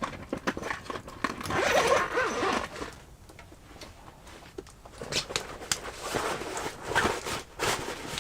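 Close-up handling noises: a long rasping scrape about a second and a half in, then scattered sharp clicks and short rustles.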